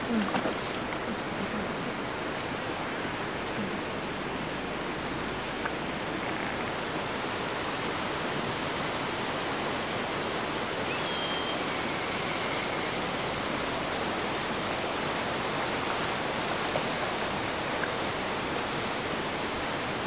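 Steady rushing outdoor background noise, even and unbroken, with no distinct events.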